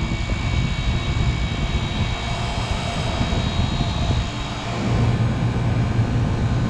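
Walk-in cooler's condensing unit running with its compressor and condenser fan, a steady loud drone with a strong low hum, while refrigerant is being charged into the system.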